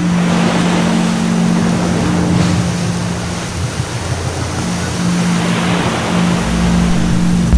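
Ocean surf washing in a steady rush, with a steady low hum underneath that fades out and back in a few times.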